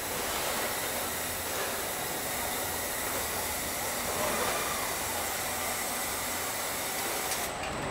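Steady hiss of machinery on a robotic car-body welding line, with a faint high whine under it. The hiss cuts off suddenly near the end.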